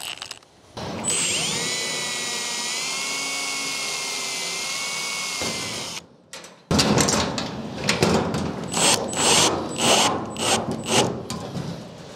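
Cordless drill spinning up and running with a steady whine for about four and a half seconds, pre-drilling a screw hole in the sheet-steel shed door for a latch catch. After a short break it runs again, this time with an uneven rattling and grinding.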